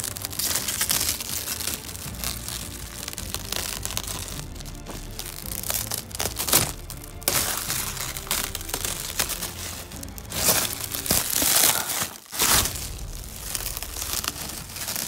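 Clear plastic protective wrap crinkling and tearing in irregular bursts as it is peeled off an RC truck's body, with background music underneath.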